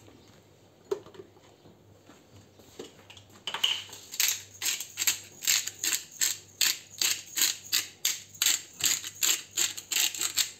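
Hand pepper mill grinding black pepper in quick, regular twists, about three rasping strokes a second, starting about three and a half seconds in. A single light knock comes about a second in.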